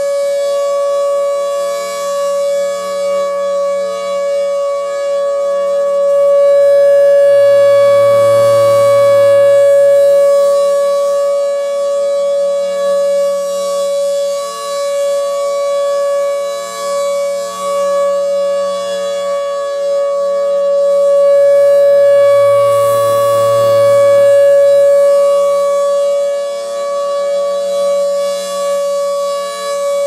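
Federal Signal Thunderbolt 1000 outdoor warning siren sounding a steady alert tone at an unchanging pitch. Its horn rotates, so the tone swells louder twice as the horn sweeps past and fades between.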